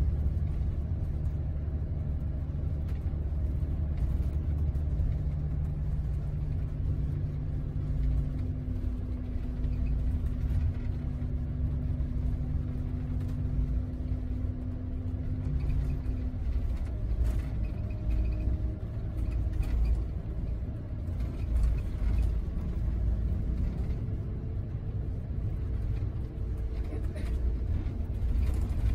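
Inside a moving Scania double-decker coach: a steady low engine drone and road rumble, with the engine note changing a little past halfway.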